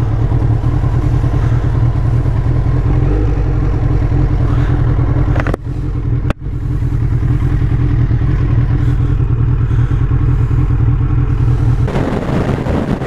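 2001 Suzuki Hayabusa's 1300 cc inline-four running steadily at low speed, briefly cutting out twice a little before halfway. Wind and road noise rise near the end as the bike picks up speed on the wet road.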